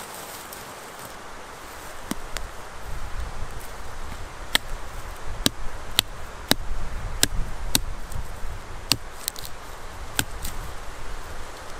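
A series of about eleven sharp, short knocks, starting about two seconds in and spaced irregularly half a second to a second apart, over a low rumble.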